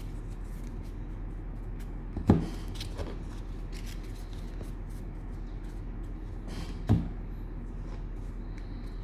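Trading cards and cello packs handled on a tabletop: two sharp taps about four and a half seconds apart, over a steady low hum.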